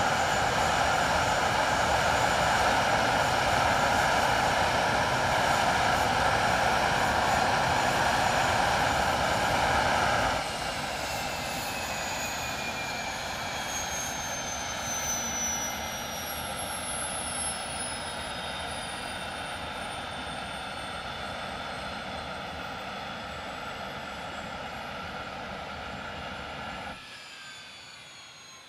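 English Electric Lightning's twin Rolls-Royce Avon turbojets in a ground run. A loud, steady jet roar drops off abruptly about ten seconds in, and the turbines then wind down with several whines sliding slowly lower in pitch, typical of an engine shutdown. The sound drops again near the end.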